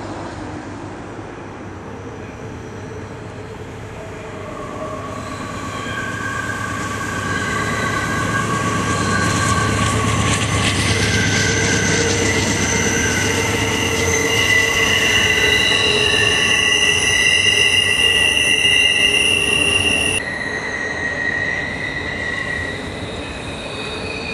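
Norfolk Southern freight train's wheel flanges squealing as its cars roll around a curve: several high, steady squeals that come and go at different pitches over a low rumble from the train. They grow louder toward the middle and drop off abruptly about twenty seconds in.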